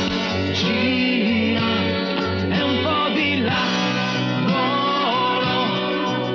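Pop-rock music: a steady bass line of repeated notes under guitar, with a sliding lead melody, sung or played, over the top.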